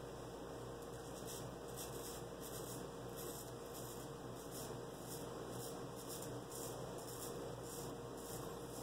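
Faint scrape of a straight razor (an 1830s George & Sons 7/8) cutting through lathered beard stubble in short repeated strokes, about two or three a second, over a steady low room hum.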